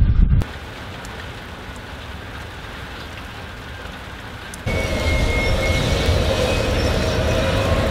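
A low rumble cuts off half a second in, giving way to steady rain falling. About four and a half seconds in, a louder sound of 442 class diesel locomotives running takes over, with steady whining tones.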